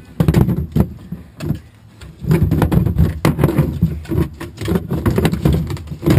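Tin cans being pushed and stacked inside a kayak hull, clunking and scraping against each other and the hull, heard from inside the hull. A few sharp knocks come in the first second, then a longer run of knocking and sliding from about two seconds in.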